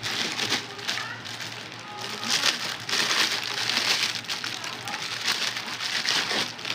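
Packaging crinkling and rustling in irregular bursts as a parcel is handled and opened.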